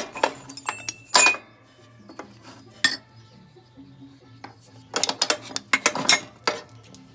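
Steel scrap pieces (tube offcuts, rods and threaded rod) clinking and clattering against each other and a metal tray as they are rummaged through by hand. A loud clank comes about a second in, and a quick run of clatter from about five to six and a half seconds in.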